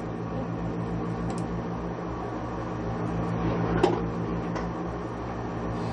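Steady electrical hum with a fan-like hiss inside a centrifuge gondola, with a single click about four seconds in.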